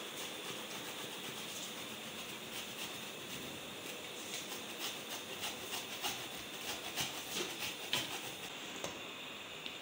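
Large pot of rice kheer simmering on a chulha: a steady hiss with scattered small irregular pops and clicks.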